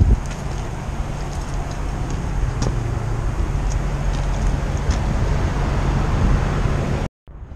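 Daikin 2-ton heat pump outdoor unit running: a steady low hum from the compressor and fan. It cuts off suddenly near the end.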